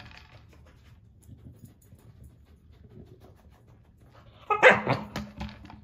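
Nova Scotia duck tolling retriever vocalizing: after a quiet stretch of faint sniffing and rustling, a sudden loud bark-like burst about four and a half seconds in, then a low steady whine.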